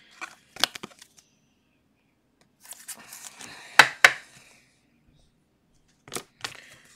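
Hands handling a stiff clear plastic top loader and trading cards: plastic rustling and scraping with sharp clicks, the loudest being two clicks close together about four seconds in.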